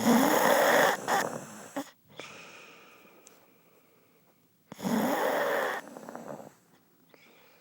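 A person snoring loudly: two long snores about five seconds apart, each lasting about a second and trailing off.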